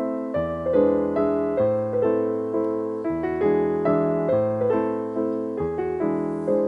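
Background piano music: a calm piece of gently struck chords over a bass line, each note fading before the next.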